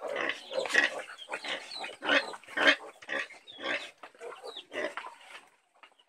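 Pigs, a sow with her litter of suckling piglets, making a rapid run of short grunting calls, about two a second, thinning out near the end.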